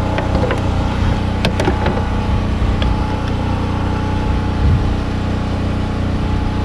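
A steady, droning engine hum from a motor idling nearby, with a few light clicks and knocks of parts being handled.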